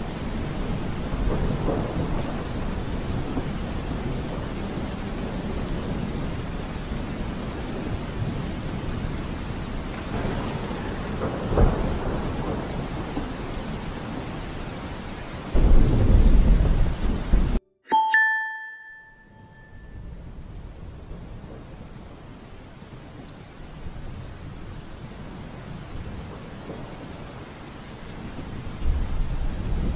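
Steady rain with rolling thunder, the heaviest rumble about sixteen seconds in, which cuts off abruptly. A short bell-like ding follows, then softer rain that swells again near the end.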